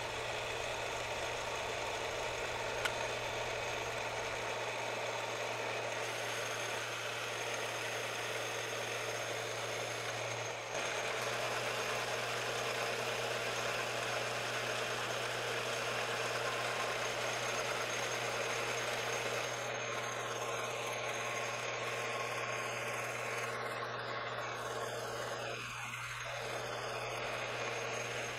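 Benchtop metal lathe running with a steady motor hum while the tool turns down a piece of brass bar stock. The sound gets slightly louder about a third of the way through.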